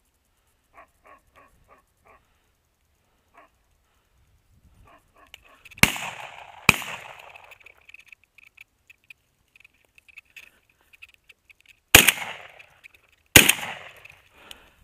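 Four shotgun shots in two pairs: two about a second apart some six seconds in, and two more about a second and a half apart near the end.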